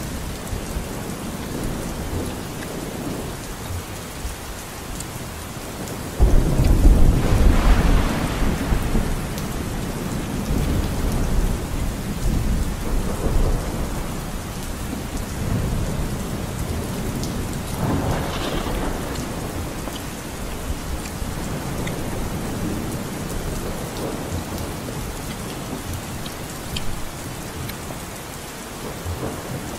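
Steady rain with a rumble of thunder that breaks in suddenly about six seconds in, stays loud for a few seconds and slowly dies away.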